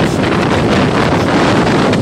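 Cyclone wind buffeting the microphone: a loud, unbroken rush of noise, heaviest in the low end.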